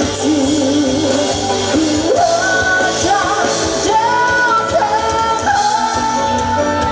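Pop song performed by a band with a lead singer. The voice steps up in pitch about two seconds in and again near the middle, then holds long notes.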